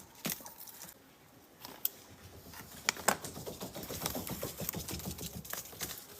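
A duck nibbling and dabbling with its bill: a few scattered clicks, then a fast, dense run of fine clicks from about two and a half seconds in.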